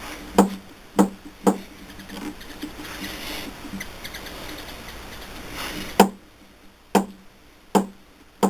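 Spindle of a South Bend 9A lathe being pressed into its headstock bearings by the tailstock: a scratchy scraping with sharp metallic knocks, several with a short ring, spaced irregularly about a second apart. The scraping stops about six seconds in while the knocks go on. The spindle is a tight fit, pushing the tailstock back.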